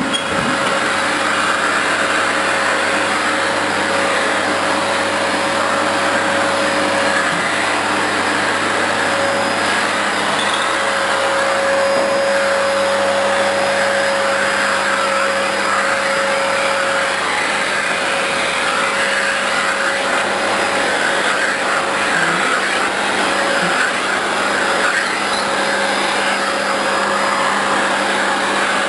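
Vacuum cleaner running steadily, with an even rush of suction and a constant motor whine; the nozzle is fitted with a fabric dusting mitt for dusting a fireplace.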